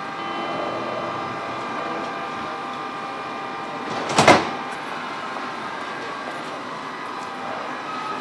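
A TGV Lyria passenger door sliding shut with one loud clunk about four seconds in, over the steady, multi-tone whine of the train standing at the platform.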